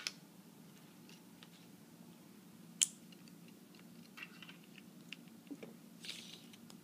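Foil Lego minifigure blind bags being handled, giving faint crinkles and small clicks, with one sharp click a little under three seconds in and a brief rustle near the end.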